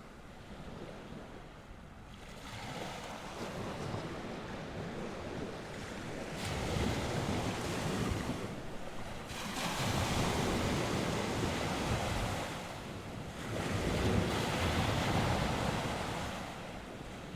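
North Sea waves breaking and washing on the shore, swelling in three surges about four seconds apart, with wind noise.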